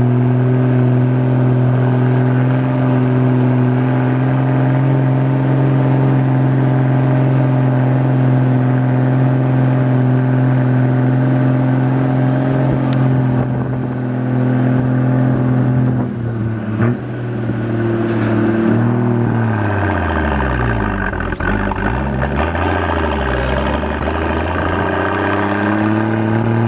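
Engine of a pickup-type truck, heard from its open cargo bed while driving up a concrete mountain road. It holds a steady note for most of the time. About two-thirds of the way through it drops in pitch as it slows or changes gear, then revs back up near the end.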